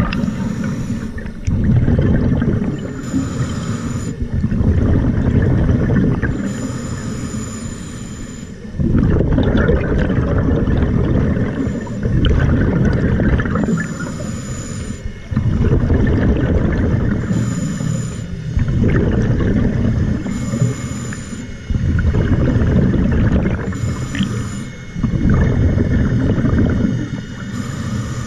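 Scuba diver breathing through a regulator underwater. A hiss on each inhale alternates with a loud bubbling rumble of exhaled air, about one breath every three to four seconds.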